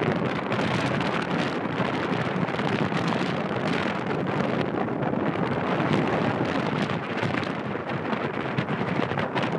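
Strong wind buffeting the microphone: a steady rushing noise.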